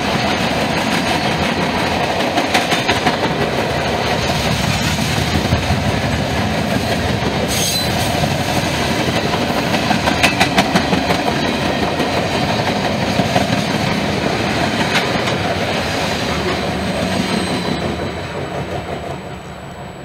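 Freight cars rolling past on the rails: a steady rumble and rattle, with quick groups of clacks as each car's wheel sets cross the rail joints. The noise drops away near the end as the last car goes by.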